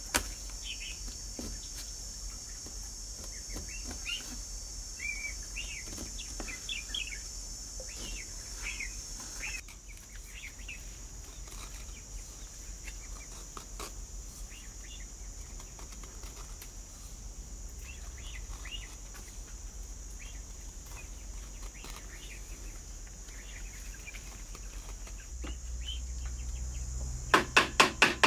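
Birds chirping with a steady high insect drone behind them; the drone drops off about a third of the way in. Near the end comes a quick run of four sharp knocks, the loudest sound here.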